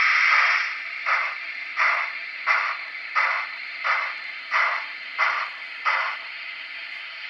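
Sound decoder in an N-scale B&O Mikado steam locomotive, heard through its tiny speaker: a steam hiss as it starts backing up, then evenly spaced exhaust chuffs, about one and a half a second, that stop about six seconds in as the throttle is brought back to zero.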